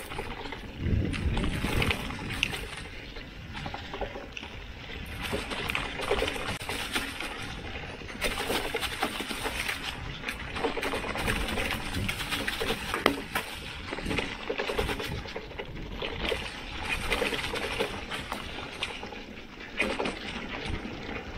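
Mountain bike tyres rolling downhill over a dirt trail thick with dry fallen leaves: a continuous crackling rustle with frequent small clicks and knocks from the bike going over the bumps.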